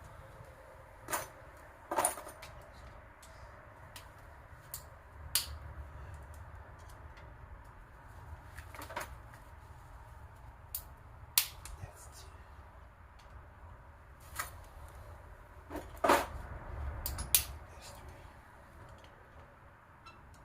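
Irregular sharp clicks and knocks of hand tools and metal engine parts being handled during an engine teardown, a dozen or so spread out, the loudest about 11, 16 and 17 seconds in, over a low steady hum.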